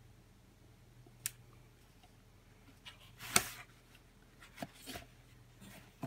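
Cardboard gift boxes being handled and pressed together on a tabletop: a sharp tap about a second in, a louder brief scuff about halfway through, and a couple of softer taps near the end.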